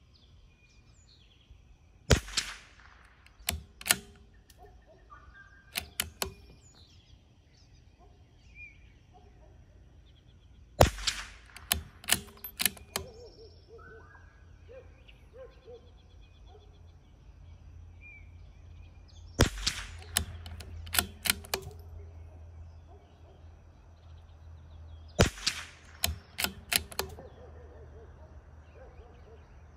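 Four shots from a CZ 457 bolt-action rifle firing Eley Match .22 LR, spaced several seconds apart. Each shot is followed within about two seconds by a short run of quieter metallic clicks as the bolt is cycled for the next round.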